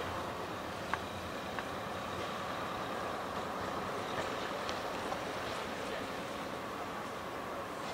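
Diesel locomotive running steadily, with a few short clicks over it.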